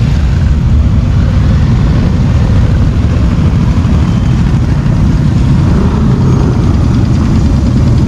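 Motorcycle engines running, a steady low sound with no clear single pass-by.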